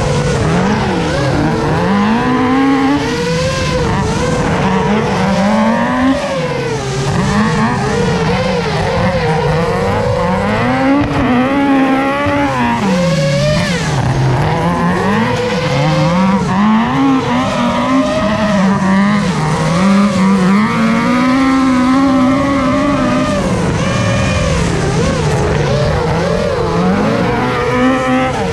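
Mk II Ford Escort engine being driven hard on a circuit, its revs climbing and dropping over and over every few seconds through gear changes and corners.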